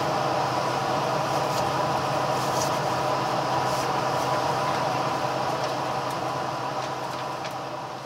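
Cabin noise inside a JR Shikoku 2600 series diesel express train running slowly into a station: a steady engine and running hum with a few faint clicks. It starts to fade out near the end.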